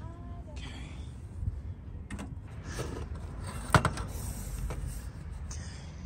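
Tanabe strut tower brace, an aluminium-and-steel bar, being handled and set onto the strut tower studs, giving a few light knocks and one sharp knock a little under four seconds in.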